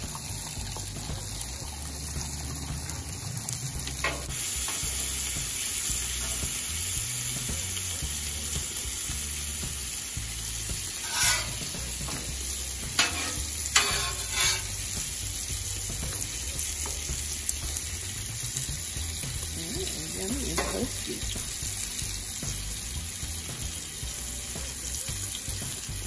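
Food frying in a pan with a steady sizzle. A few sharp knocks come about halfway through.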